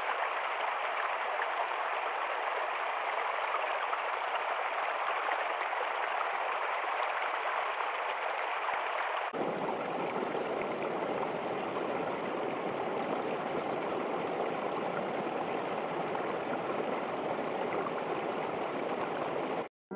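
A shallow stream rushing over rocks: a steady hiss of flowing water. About halfway through it cuts to a fuller, deeper rush of water spilling over a small cascade.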